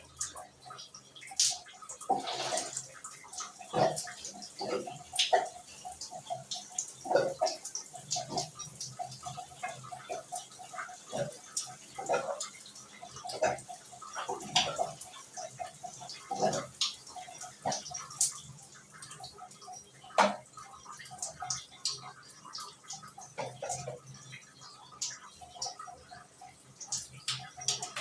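Irregular clicks, taps and small knocks of plumbing fittings and hand tools being handled while a water heater and tap are installed, with some water sounds. Some of the knocks ring briefly.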